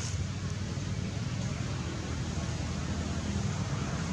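Steady low rumble with an even hiss of outdoor background noise, no animal calls standing out.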